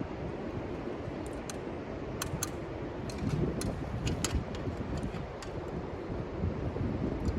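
Wind buffeting the microphone, with scattered light clicks and taps, about a dozen, through it.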